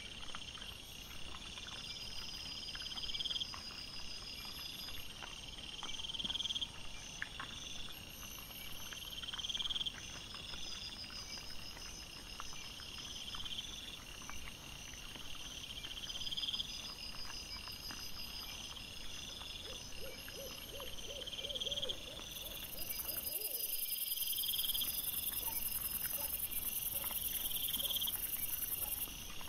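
Night insects chirping in a regular repeating pattern, one chirp about every second and a half, over scattered faint clicks and rustles. Near the end a higher, steadier insect hiss takes over.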